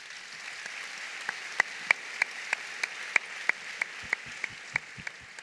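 Audience applauding, with one pair of hands clapping close and loud about three times a second over the crowd; the applause fades near the end.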